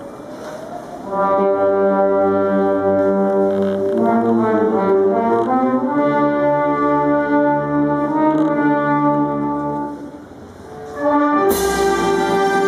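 Marching brass band of trombones, trumpets and tuba playing long held chords. The music dips briefly near ten seconds, then comes back in with a cymbal crash.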